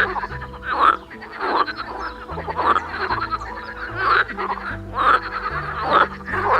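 Frog croaking over and over, a call about every second, over background music with a stepping bass line.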